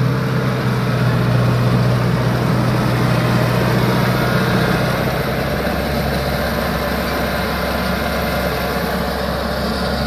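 A Kubota DC-70 crawler combine harvester's diesel engine runs steadily as the machine moves past on its tracks. Its deep drone shifts lower about halfway through.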